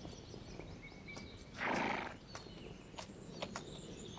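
A horse blows out once, a short noisy snort about one and a half seconds in, with a few faint clicks around it.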